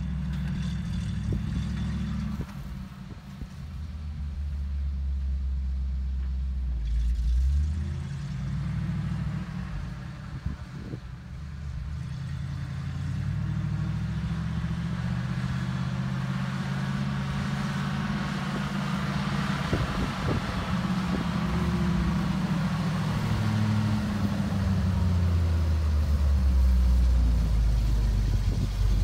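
1966 Chevrolet 60 grain truck's engine running as the truck drives, its pitch stepping up and down with changes of speed and growing louder near the end as the truck pulls up close.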